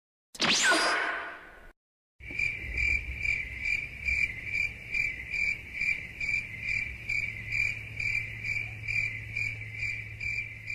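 Crickets chirping in an even rhythm, about two to three chirps a second over a low hum: the stock 'awkward silence' crickets sound effect. It is preceded by a short sweeping sound that ends about a second and a half in.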